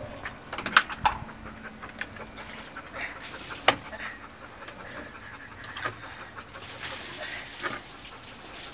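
Water splashing in a white plastic tub, with a few sharp knocks of the tub. Near the end, water pours out as the tub is tipped over onto the wooden deck.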